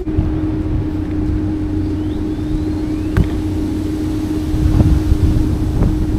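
NAVEE V50i Pro electric scooter riding at a steady speed: the motor's whine holds one even pitch over low rumble from wind on the microphone and tyres on asphalt.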